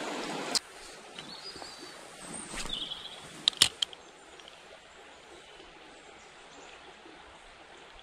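Shallow river water rushing over stones, cut off abruptly about half a second in. It leaves a quiet outdoor background by a still pool, with a couple of short high chirps and a quick cluster of sharp clicks about three and a half seconds in.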